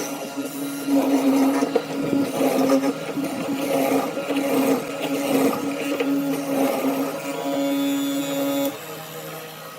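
An electric power tool running and working wood. Its motor gives a steady whine under a rough, rasping noise that swells and fades as it bites. It stops suddenly about nine seconds in.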